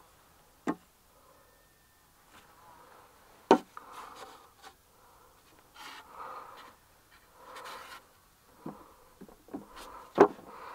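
Aluminium spirit level set down and shifted on a pine board, giving a few sharp wooden knocks, the loudest about three and a half seconds in and near the end. In between, a gloved hand rubs and brushes along the board.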